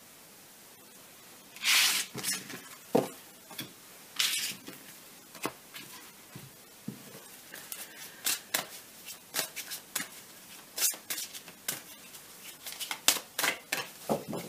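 Tarot cards being handled and shuffled: two longer sliding swishes in the first few seconds, then a quick run of short, sharp card clicks and taps.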